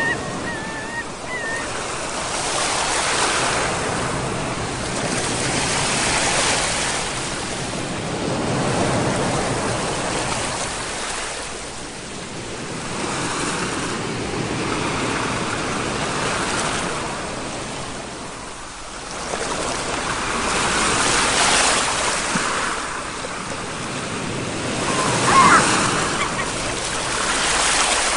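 Ocean surf: waves breaking and washing in, the rush swelling and fading every three to four seconds. A brief, high wavering call cuts through about 25 seconds in.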